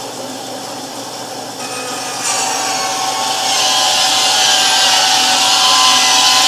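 Central Machinery 14-inch bandsaw, fitted with ball-bearing blade guides, running and then cutting a wooden board. The blade enters the wood about two seconds in, and the cutting hiss grows louder and holds steady over the motor's hum.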